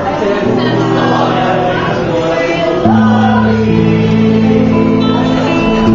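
Small mixed choir of men and women singing in harmony, holding long chords; the singing gets louder about three seconds in.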